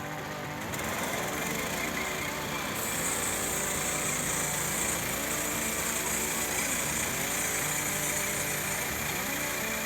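Small gas engine of a portable band sawmill running under load, its pitch dipping and recovering. From about 3 s in, a loud high hiss joins it as the blade cuts through the log.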